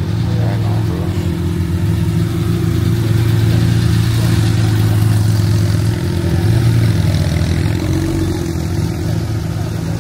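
A car engine running at low revs close by, a steady deep rumble with little change in pitch.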